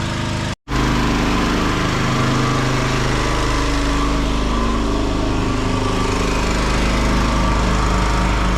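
Farm pressure washer running steadily, its motor hum under a wide hiss, cutting out for a moment about half a second in and then carrying on unchanged.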